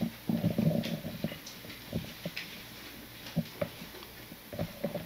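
Bible pages being leafed through: short, irregular soft taps and rustles.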